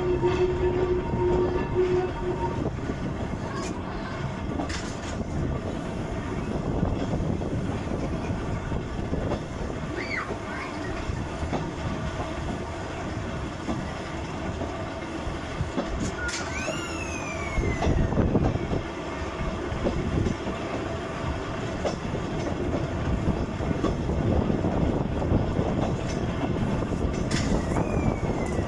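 Volks Electric Railway car running along the track, heard from an open-sided car: a steady rumble and clatter of wheels on rail. A steady hum runs for about the first two seconds, and a few short, high, falling squeals come partway through and near the end.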